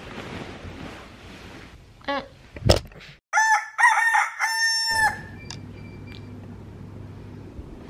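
Rooster crowing cock-a-doodle-doo as an edited-in wake-up sound effect: a few quick notes and then a longer held one, starting about three seconds in and cutting off abruptly. A sharp click comes just before it.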